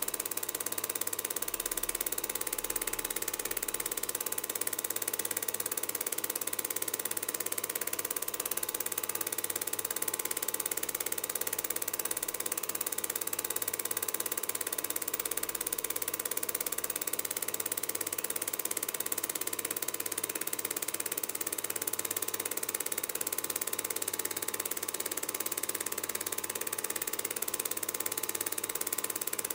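Steady mechanical whir of a film projector running: a constant hum with hiss that does not change across the picture's cuts.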